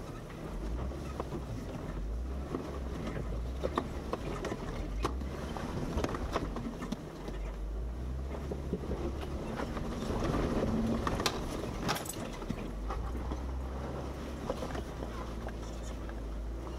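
Jeep Wrangler JKU Rubicon crawling over off-road terrain: a steady low engine rumble with scattered sharp knocks and clunks, a little louder about two-thirds of the way through.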